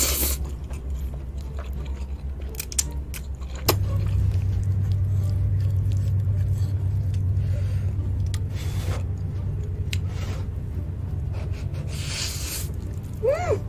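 Noodle-eating sounds: scattered wet clicks and smacks, and a slurp-like hiss near the end. Under them runs a steady low hum that steps up in level with a sharp click a few seconds in.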